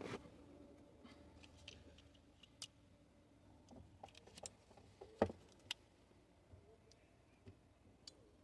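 Faint, scattered clicks and taps from a hood release cable being handled and pushed through a hole in a car's body.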